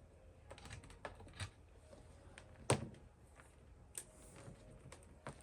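Scattered light clicks and taps of tools being handled on a workbench, with one sharper knock about three seconds in.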